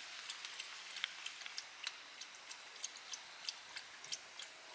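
Dog lapping up rainwater: faint, irregular clicks, a few each second.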